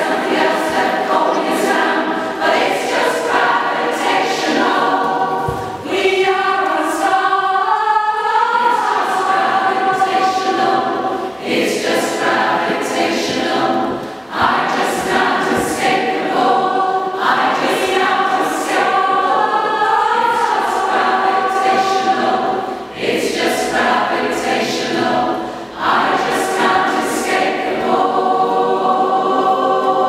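Community choir singing in a church, phrase after phrase with brief pauses between them.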